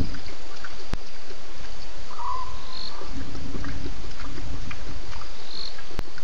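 Frogs and insects calling over a steady low rumble. One call bends up and down a little over two seconds in, with short high blips around it. Two sharp clicks come, about a second in and near the end.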